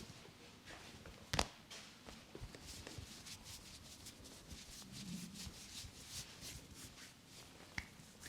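Hands rubbing and stroking hair and scalp during a head massage, in quick soft strokes, with one sharp crack about a second and a half in and a smaller click near the end.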